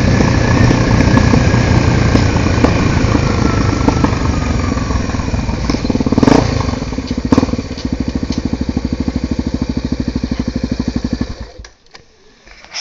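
Honda XR250 Tornado's single-cylinder four-stroke engine running and slowing with a falling whine, two thumps in the middle, then idling with an even pulse before being cut off about a second before the end.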